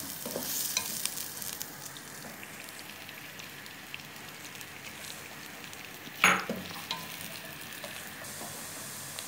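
Chopped onions sizzling in hot oil in a kadhai, at the early frying stage before they turn light pink, stirred with a plastic slotted spatula that scrapes and clicks against the pan. One louder knock stands out about six seconds in.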